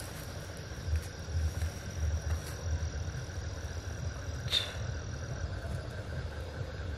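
Night insects trilling: a thin, steady high tone that stops about five and a half seconds in, over an irregular low rumble on the microphone. A single sharp click comes about four and a half seconds in.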